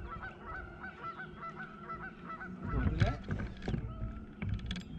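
Geese honking in a quick run of short calls, about four or five a second, that fades out about two seconds in. Then a few loud thumps and rattles about three seconds in, with sharp clicks near the end.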